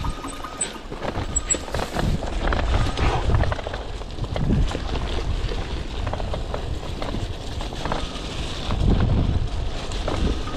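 Cyclocross bike ridden over a leaf- and pine-needle-covered dirt trail: tyres rolling over the ground, with frequent rattling knocks from the bike over bumps and wind rumbling on the microphone.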